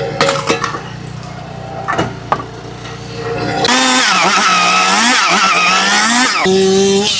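Firewood processor running, with sharp knocks of wood in the first few seconds. About three and a half seconds in, its saw cuts through a log: a loud hissing whine that wavers in pitch under load for about three seconds, then cuts off back to the steady engine hum.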